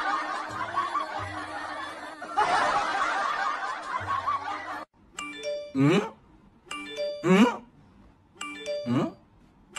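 Dense, busy backing music that cuts off suddenly about five seconds in. After it comes a looping comic sound effect, a bell-like ding and a quick rising squeaky glide, repeated four times about every second and a half.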